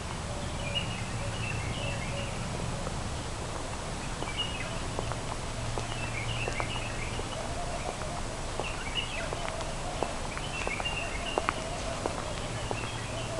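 Small birds twittering in short bursts of chirps every couple of seconds over a low steady hum, with scattered light clicks.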